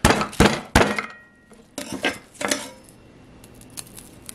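A kitchen knife and garlic knocking against a ceramic plate as a head of garlic is broken apart: three sharp knocks in the first second, softer clinks about two seconds in, then faint papery rustling as a clove is peeled.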